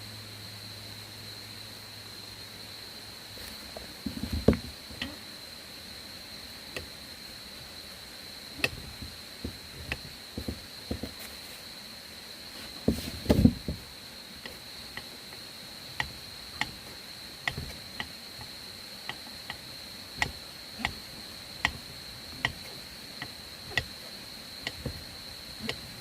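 Insects, probably crickets, chirring in one steady high note. Over it comes a series of sharp knocks and taps. There are heavier clusters about four and thirteen seconds in, and in the second half the taps become fairly regular, about one every two-thirds of a second.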